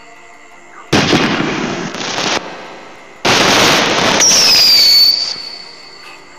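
Firework sound effect played by an LED fireworks light's sound module: two bursts of bang and crackle, about a second in and again about three seconds in, with a high falling whistle over the second burst.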